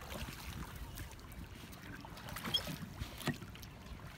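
Water sloshing against the hull of a small boat moving on a river, with wind rumbling on the microphone and two soft knocks, the second about a second after the first.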